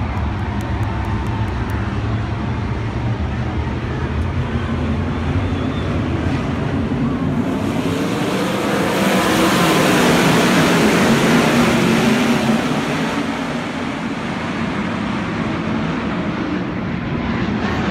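A pack of winged 410 sprint cars runs past together, their engines rumbling. The sound swells to a peak about halfway through and then fades as they go by.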